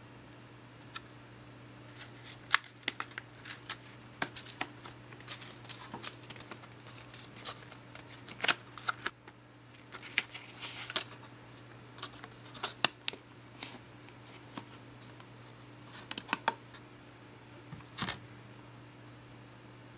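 Stiff clear plastic blister pack holding DDR3 memory modules being handled and opened: scattered clicks, taps and crackles of the plastic, some in quick clusters, over a steady low hum.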